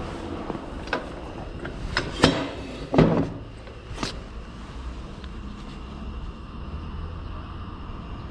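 A handful of sharp knocks and clacks, the loudest two a little over two and three seconds in, over a steady low hum.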